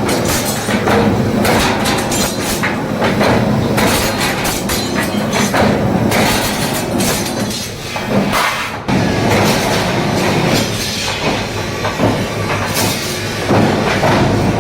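Rapid, continuous clatter of many repeated metal strikes at a blacksmith's forge, easing briefly about eight seconds in.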